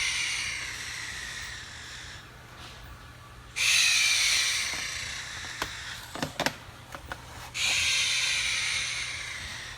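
Three loud bursts of hissing, each starting suddenly and fading away over two to three seconds, with a few sharp clicks between the second and third.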